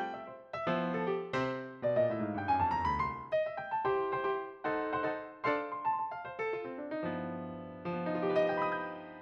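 Background piano music: a light melody of plucky notes with a quick rising run about two seconds in, the last chord dying away near the end.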